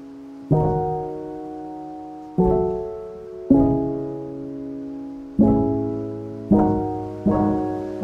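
Background piano music: slow chords struck every one to two seconds, each fading away before the next.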